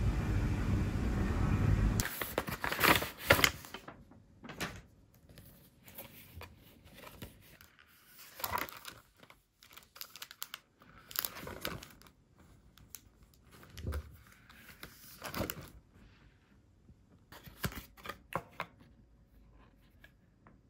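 A steady noise for about two seconds that cuts off, then a series of short, irregular crinkles and rustles of packaging being handled and torn open, in a quiet room.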